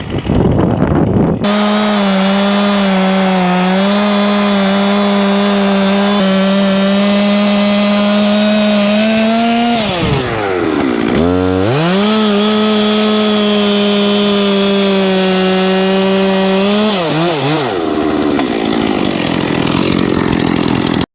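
Two-stroke chainsaw running at high revs, cutting wood. The engine drops to a low idle about ten seconds in, revs back up and carries on, then winds down a few seconds before the end.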